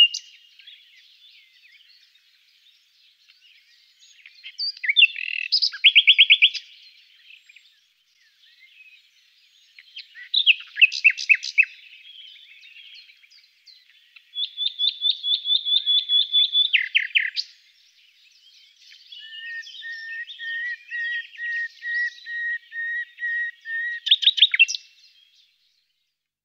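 Common nightingale singing: four separate phrases a few seconds apart, each built of fast repeated notes and trills with quick sweeps. The last and longest is a run of lower, evenly spaced notes that ends in a rapid flourish.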